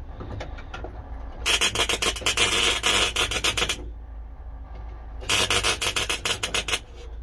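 MIG welder stitch-welding a new steel patch panel into a car's floor pan: two runs of crackling arc, the first a little over two seconds long starting about a second and a half in, the second about a second and a half long starting about five seconds in.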